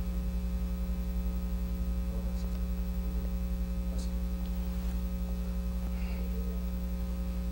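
Steady electrical mains hum on the recording: a low buzz with a few fainter higher overtones, unchanging throughout.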